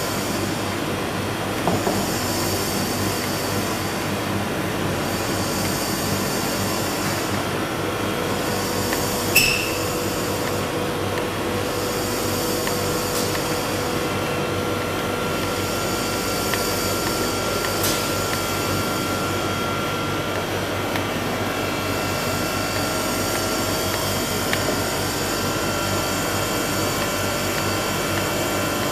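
Steady mechanical drone with faint steady whining tones, and a single sharp click about nine seconds in.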